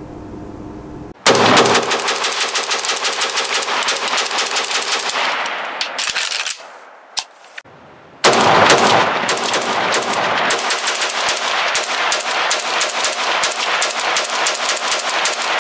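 Arsenal SA RPK-5 semi-automatic rifle in 5.56 NATO firing rapid strings of shots. The first string starts about a second in and runs about five seconds; after a short pause a second long string follows.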